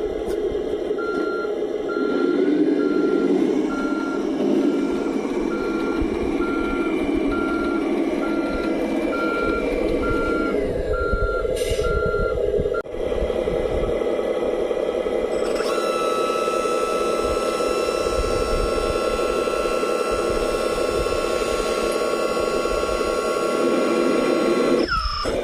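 RC model truck's sound module playing a diesel engine drone with reversing beeps, about one a second, through the first half. After a brief break a steady high whine joins the engine sound and runs until near the end.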